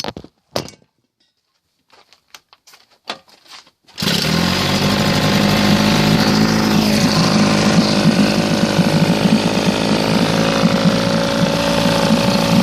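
A few scattered clicks and knocks, then about four seconds in a 1967 Evinrude 18 hp two-cylinder two-stroke outboard motor starts on a pull and runs steadily.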